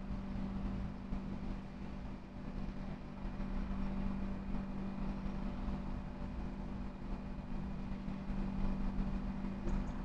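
A steady mechanical hum with a strong low tone and fainter higher tones over a low rumble, like engine or machinery noise in the background, with two faint ticks near the end.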